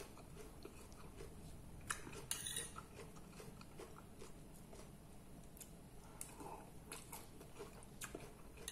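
A person faintly chewing a mouthful of lettuce with closed lips, with a few soft crunches scattered through.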